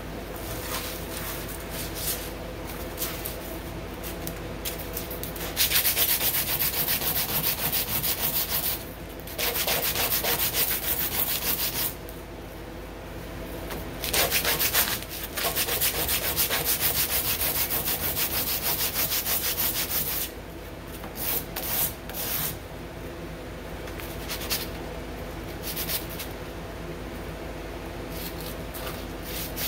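Sandpaper rubbed by hand in rapid back-and-forth strokes over a chromatic harmonica's mouthpiece slider, shaping its outer surface. The strokes come heavier and louder in several long stretches through the middle, and lighter at the start and end.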